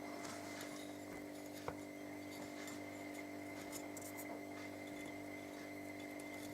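Steady low background hum with faint small handling noises and one light tap about a second and a half in.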